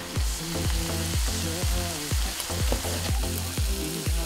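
Food sizzling in a hot pan, a steady hiss, under background music with a steady kick-drum beat.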